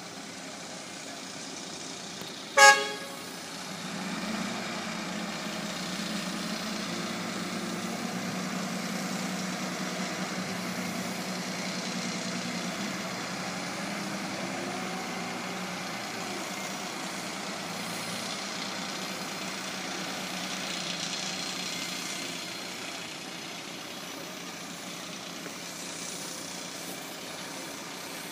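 A short horn toot about three seconds in, the loudest sound. Then the diesel engine of a large wheel loader working as it loads rubble into a dump truck: a steady low engine note that swells after the horn and eases off near the end.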